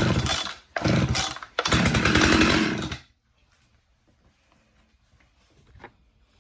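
Skilsaw 1632C two-stroke chainsaw engine firing in short sputtering bursts, the last running for about a second and a half before it cuts out about three seconds in. It is running only on gas poured down the carburettor.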